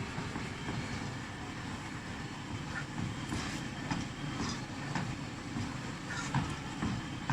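Spoon stirring the thickening karhi batter in a cooking pot, with scattered light scrapes and clinks over a steady low kitchen rumble.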